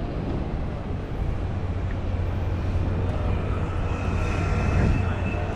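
A steady, low engine drone with a faint high whine coming in about three seconds in.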